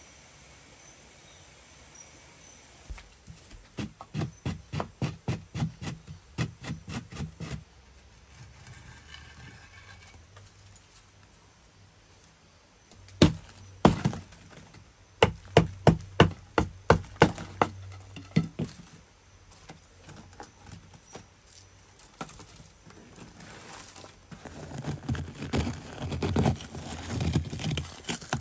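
A wooden stick knocking and prying at the clay base of a small smelting furnace, in runs of about three strikes a second with two heavier blows in between, breaking open the furnace to get at the slag and iron inside. Near the end, scraping and crumbling as clay and ash are raked out by hand.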